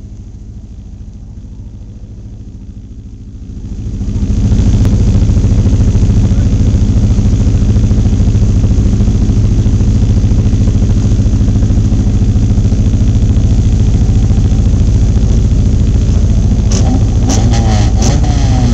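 Dirt-track stock car engine running at a steady idle, heard from inside the car; about four seconds in it becomes much louder and stays loud and steady. Near the end, engines rev up and down, with a few sharp knocks.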